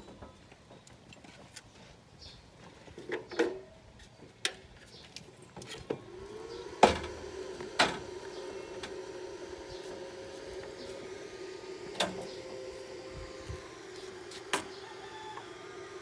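Scattered clicks and knocks, then about six seconds in a small electric motor starts, rising quickly to a steady hum. A few sharp knocks sound over the hum.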